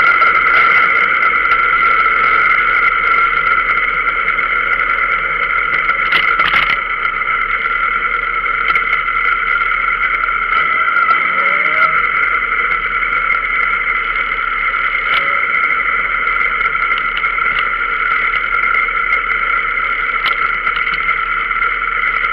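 Motorcycle running at low speed, heard through a camera mounted on the bike: a steady hum that holds one pitch, with a brief knock about six seconds in.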